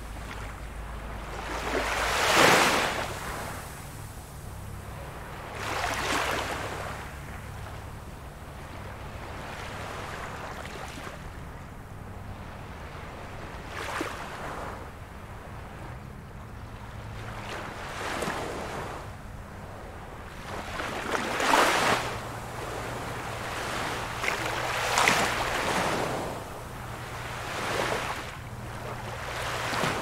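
Small ocean waves breaking and washing ashore, a surge every three to four seconds over a steady hiss of surf.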